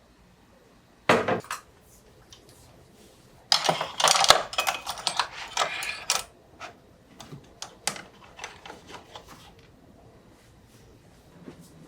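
Dishes and cutlery clattering. A single knock comes about a second in, then a couple of seconds of dense clinking and clatter, then lighter scattered taps.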